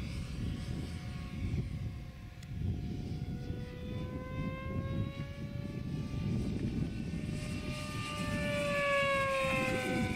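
Electric motor and propeller of a Quickie 500 RC airplane whining in flight. The whine slowly rises in pitch, then falls again near the end as the plane passes. A low, uneven rumble runs beneath it.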